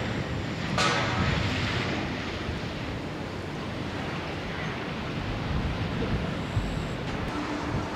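Jet airliner noise fading over the first couple of seconds, then settling into a steady, even rumble, with a brief sharp sound about a second in.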